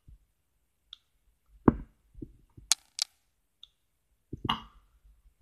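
Sharp small clicks from an Olympus mju II (Stylus Epic DLX) 35mm compact camera as its buttons are pressed to set the self-timer, the two sharpest close together near the middle, with two faint short beeps.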